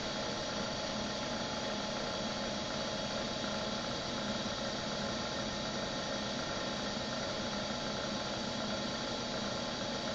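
Comet 3KVHD milling machine running steadily, an even hum with several constant tones.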